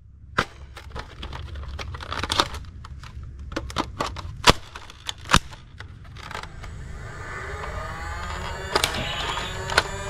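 A toy dart blaster fires repeatedly, giving single sharp clicks and knocks a second or so apart. Background music comes in about two-thirds of the way through.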